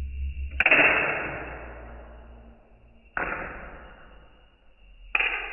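Three sudden sharp snaps from a 3D-printed Tic Tac launcher firing, about two and a half and then two seconds apart. Each fades away over a second or two, and the first is the loudest.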